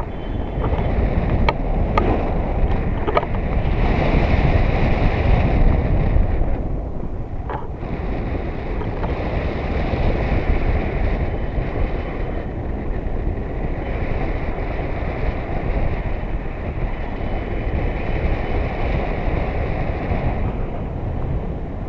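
Wind rushing over an action camera's microphone on a paraglider in flight: a loud, steady, buffeting rumble that swells and eases. A few sharp clicks come in the first few seconds and one more about seven seconds in.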